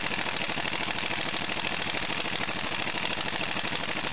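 Handheld power impact tool hammering steadily in rapid strokes as it runs a bolt into the engine's aluminium block. The bolt is binding, which the owner fears has damaged the threads.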